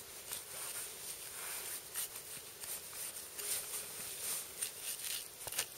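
Irregular scraping and rustling as a hunting knife and gloved hands work at a deer carcass's hide and fur during field dressing, with a sharp click near the end.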